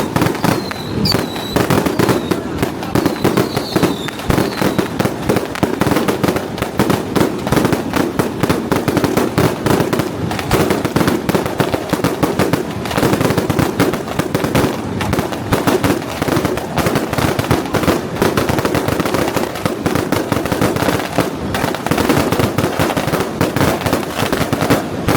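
Strings of firecrackers going off in a dense, unbroken crackle of rapid bangs, with a few short high whistling squeals in the first few seconds.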